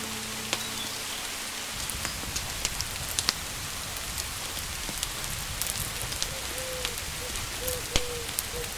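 Steady rain falling, with many scattered sharp drips and ticks. A faint short call repeats several times over the last few seconds.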